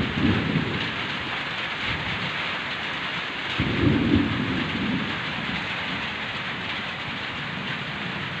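Heavy rain falling steadily, with low rumbles of thunder: a short one at the start and a louder, longer one about three and a half seconds in.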